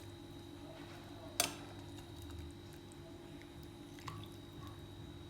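A single sharp knock about a second and a half in and a fainter click near four seconds, over a steady low hum.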